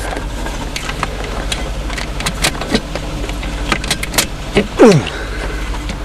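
A junked car's 3.8-litre V6 being started and running: a steady low engine drone with scattered clicks and rattles. A loud whine falls sharply in pitch about five seconds in.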